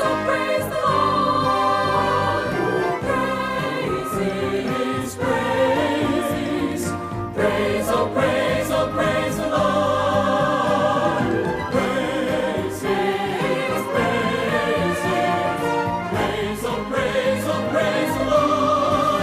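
Gospel music: a vocal ensemble singing over instrumental accompaniment.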